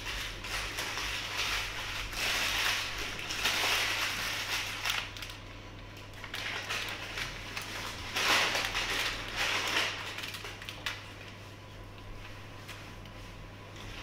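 Paper burger wrapper being crumpled and a paper takeaway bag rustling as it is handled, crackling in two spells: through the first few seconds and again about eight seconds in.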